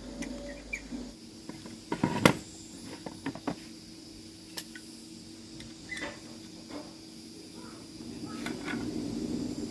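Scattered clicks and knocks, the loudest a sharp double knock about two seconds in, over a steady low hum that grows a little near the end.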